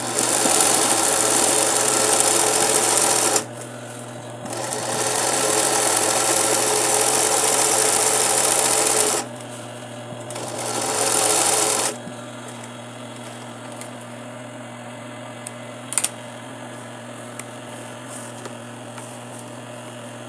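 Industrial zig-zag sewing machine (a 20U) satin-stitching the edge of a fabric appliqué in three runs, about three, four and a half and one and a half seconds long. Between the runs and for the last eight seconds only the motor's steady hum is left, with one sharp click about 16 seconds in.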